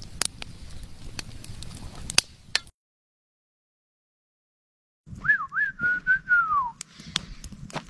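Sharp clicks over a steady hiss, a cut to dead silence for about two seconds, then one short whistle that wobbles up and down, holds, and slides down at the end.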